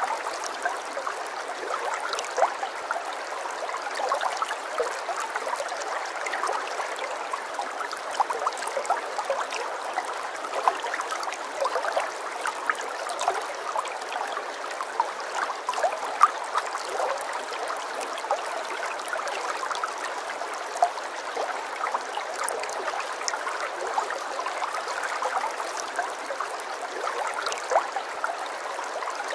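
Running water trickling steadily, like a small stream, with many small plinks and splashes over an even rush.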